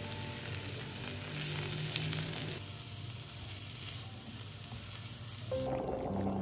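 Food sizzling as it fries in hot oil in a pan, a steady crackling hiss. There is a cut partway through, and held background music notes come up near the end.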